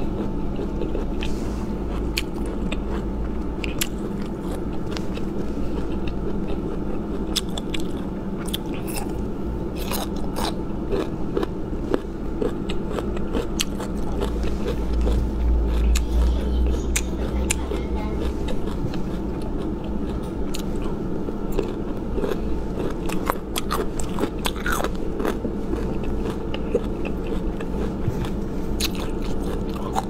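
Close-miked crunching and chewing of crisp bamboo shoot pieces: many sharp crackling bites and wet chewing, over a steady low hum.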